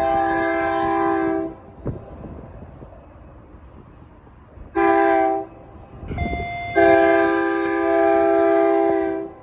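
BNSF freight locomotive's air horn: a long blast that ends about a second and a half in, a short blast near the middle, then a long blast through the second half, over the low rumble of the passing train.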